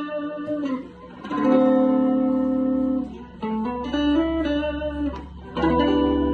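Guitar playing slow single notes, each plucked and left to ring for a second or more before the next.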